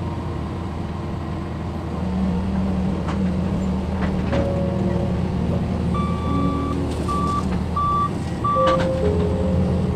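Hydraulic excavator's diesel engine running steadily under load as the bucket swings and tips soil into a dump truck bed, with a few knocks from the bucket and load. About six seconds in, an alarm beeps four times at one pitch.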